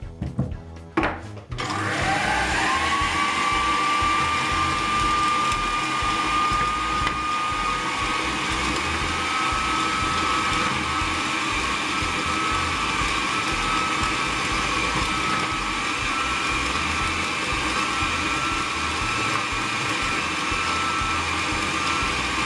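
Electric food processor with a slicing disc running as potatoes are fed in and sliced. Its motor whine rises as it starts about two seconds in, then holds a steady pitch over a steady hiss. A couple of knocks come just before the motor starts.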